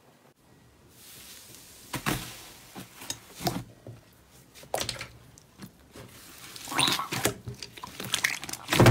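Hands pressing, stretching and squishing soft slime in a bowl, giving sticky crackles and small air-pocket pops about once a second, starting about a second in and loudest near the end.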